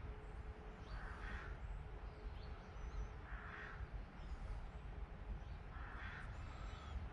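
Three faint, harsh bird calls, spaced about two and a half seconds apart, over a low steady rumble.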